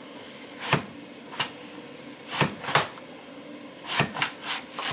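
Dash Safe Slice Mandoline being worked by hand, its plastic handle and blade carriage chopping through onion with about seven sharp, irregular clacks.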